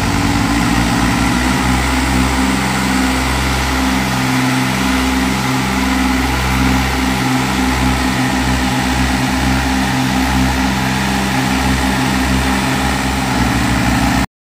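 Diesel engines of a John Deere 5050D and a Swaraj 735 tractor running hard under heavy load in a tug-of-war, with a throbbing low drone that comes and goes every half second to a second. The sound cuts off suddenly just before the end.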